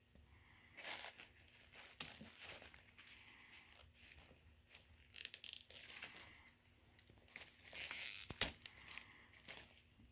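Packaging crinkling and tearing as a new handbag is unwrapped by hand, starting about a second in, with irregular rustles and crackles and the loudest stretch near the end.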